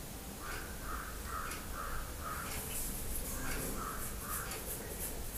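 Crow cawing in two runs of short calls: about six in quick succession, then, after a pause, three more.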